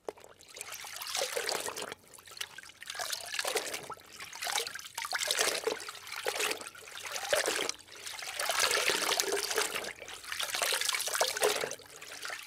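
Rushing, splashing water that swells and fades every second or two.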